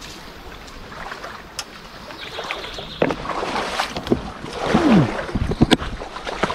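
A person scrambling up a steep, overgrown riverbank: rustling vegetation, footfalls and knocks of gear, busier and louder from about halfway, with a short sound falling in pitch near the five-second mark and a run of knocks after it.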